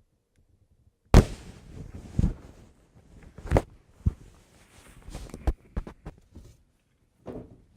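Packaging and parts being handled: a series of sharp knocks and clatter, the loudest about a second in, with rustling and scraping between them.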